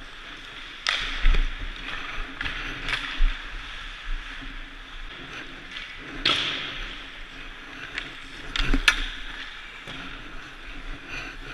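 Ice hockey skates scraping the ice, with several sharp cracks of sticks striking pucks, loudest about a second in and again near the end, over a steady low hum.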